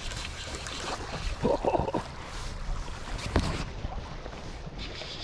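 Wind rumbling on the microphone over the rush of a shallow stream, with a short cluster of knocks about a second and a half in and one more sharp knock about three and a half seconds in.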